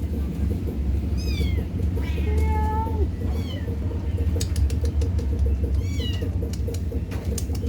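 Domestic cats meowing, about four separate meows, with a longer, level one about two seconds in. A steady low hum and a few sharp clicks run underneath.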